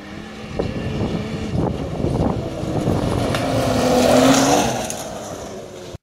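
Turbocharged snowmobile fitted with a Turbo Dynamics aftermarket exhaust running past under throttle, its engine note rising and growing to its loudest about four seconds in before fading away. The sound cuts off abruptly at the end.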